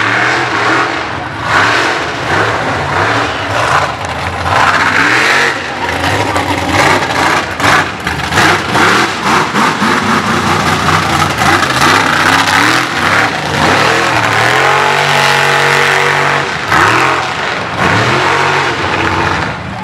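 Race buggy's engine revving hard through a mud pit run, its pitch rising and falling again and again with sharp crackles. About three-quarters of the way through it holds a steady high pitch for about two seconds, then surges on.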